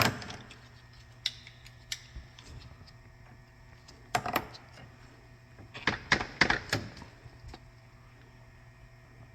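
Scattered sharp clicks and knocks from a hose clamp and hand tools while the lower radiator hose is worked onto the radiator outlet: a double knock about four seconds in and a quick cluster around six to seven seconds, over a faint steady hum.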